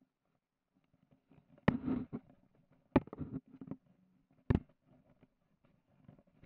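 Three sharp knocks with smaller clattering between them as a homemade boat of OSB board and foamed-in plastic bottles is bumped and handled.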